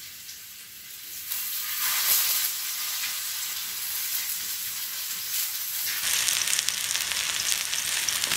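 Chicken kebab skewers sizzling as they fry in oil on a flat griddle pan, a steady hiss that grows louder a second or so in and again about six seconds in.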